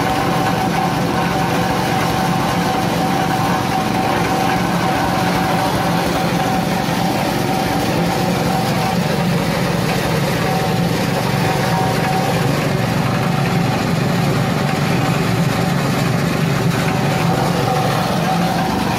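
Small single-cylinder petrol engine running steadily, driving a coconut-husk shredder that grinds husks into cocofiber and cocopeat, with a steady whine over the engine's note.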